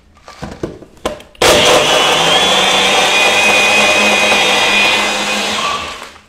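A few short knocks, then a personal bullet-style blender runs for about four and a half seconds with a steady motor noise and a high whine, blending yogurt, blueberries and ice into a smoothie. It winds down near the end.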